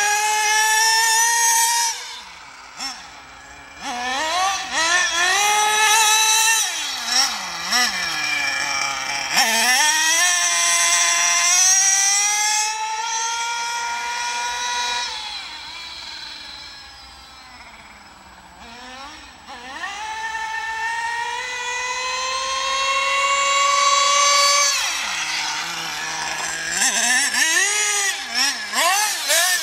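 Carson Specter 1:8-scale nitro RC car's small two-stroke glow engine revving high and falling back again and again as it is driven, with pitch dips on each let-off. It grows fainter for a few seconds in the middle, then comes back up to full revs.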